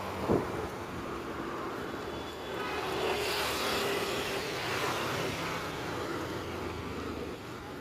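Road traffic passing close by, with engine hum and tyre noise; one vehicle swells past about three to five seconds in. A brief sharp knock sounds just after the start.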